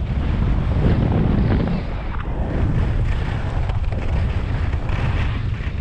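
Wind buffeting an action camera's microphone while skiing downhill, a heavy irregular rumble, with the hiss and scrape of skis on packed piste snow swelling several times through the turns.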